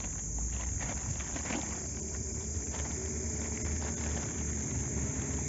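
Hand mixing marinated chicken pieces inside a plastic bag, with soft, irregular rustling and handling noises, over a steady high insect drone.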